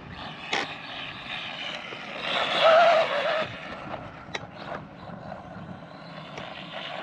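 Arrma Mojave Grom BLX mini RC truck's brushless motor whining in a wavering pitch as it accelerates hard in a burst about two to three seconds in, over a steady hiss of tyres on dirt, with a couple of sharp clicks from the chassis hitting bumps.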